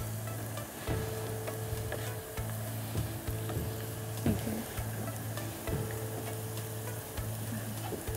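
Onions and ground spices sizzling in oil in a frying pan while a wooden spatula stirs them, with a few scrapes and taps of the spatula on the pan. The spices are being fried down (bhuna) in the oil.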